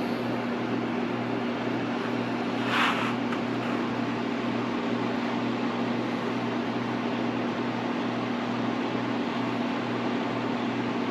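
A steady mechanical hum from a running appliance, with a low drone that pulses slightly. About three seconds in there is one brief, sharper sound.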